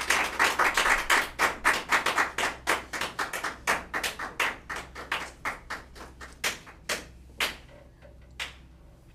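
Applause, steady clapping that thins out to a few scattered claps and dies away near the end.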